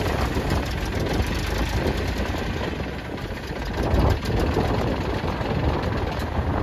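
Eicher 480 4WD tractor's diesel engine running steadily as it pulls a Shaktiman rotavator through wet paddy mud, with a brief louder surge about four seconds in.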